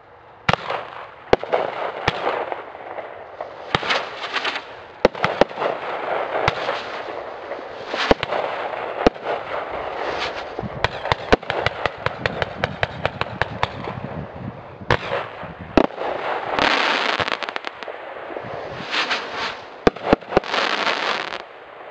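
A 27-shot consumer firework cake firing. Its shots and aerial bursts go off as repeated sharp bangs over continuous hissing and crackling. A quick run of shots comes about ten to fourteen seconds in, and long crackling bursts come near the end.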